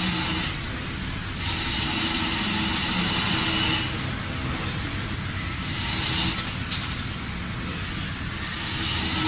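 Industrial machine running with a steady hum, broken by three spells of loud hissing, the first lasting about two seconds.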